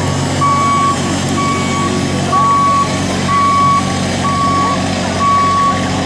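Street litter-vacuum vehicle's warning beeper sounding a steady high beep about once a second, each beep about half a second long, over the machine's steady low running hum.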